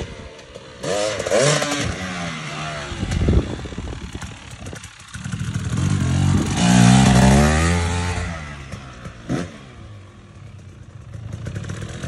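Dirt bike engines revving and riding past, the pitch rising and falling with the throttle, loudest about six to eight seconds in. A few short, sharp knocks and clatters come in between.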